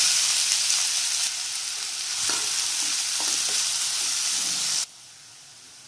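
Freshly added chopped onions sizzling steadily in hot oil in a kadai as they are stirred with a spatula. The sizzle cuts off suddenly near the end.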